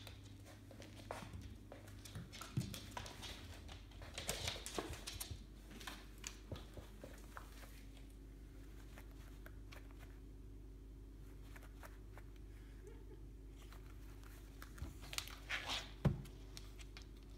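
A cat playing with a tennis ball on a laminate floor: scattered scuffles, taps and scrapes of paws, claws and ball. A busy stretch early on and a short flurry near the end that finishes in a sharp knock, the loudest sound.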